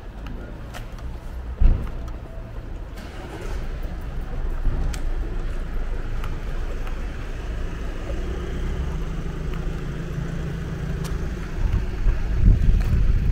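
Street traffic: a car passes on the road, its engine hum rising from about three seconds in and holding for several seconds, with a single sharp thump about two seconds in. Low rumble grows louder near the end.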